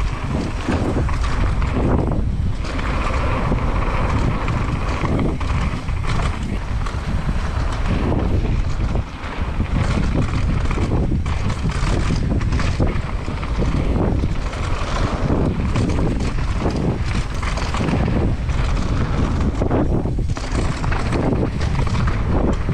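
Wind rushing over the camera microphone as a downhill mountain bike runs fast down a dirt trail, with tyre noise and frequent knocks and rattles from the bike over rough ground.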